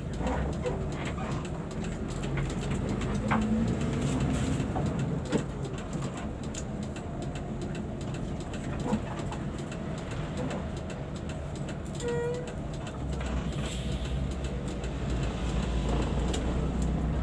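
Engine and road noise inside a moving bus: a steady low drone that grows louder about two thirds of the way through, with scattered clicks and rattles and one brief tone about twelve seconds in.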